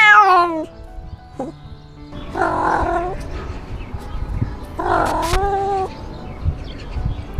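Domestic cat meowing loudly, close up from a camera on its own collar. A falling meow comes at the start and a short one about a second and a half in, then two long drawn-out yowls come about two and five seconds in.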